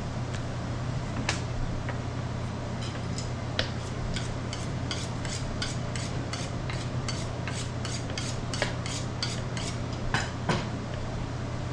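Butcher's knife worked in quick, even scraping strokes, about four a second for some seven seconds, over a steady low machine hum.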